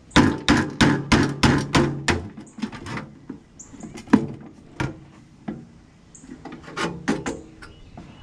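Hammer blows on a chisel against a microwave oven's sheet-metal body: a quick run of about eight strikes in the first two seconds, then slower, scattered strikes, each with a short ring. The chisel is being driven to break a spot-welded part loose.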